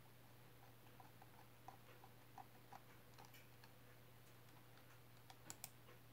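Near silence with a few faint, scattered plastic clicks of a Rubik's cube being turned, two of them close together near the end, over a low steady hum.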